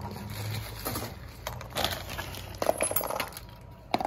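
Plastic parts bag and loose small hardware being handled on cardboard: plastic rustling with light clinks of screws and small metal pieces, in several short irregular bursts.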